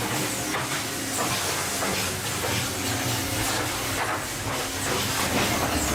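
Woodworking machinery in a sawmill workshop running with a steady hiss and hum, with scattered short knocks.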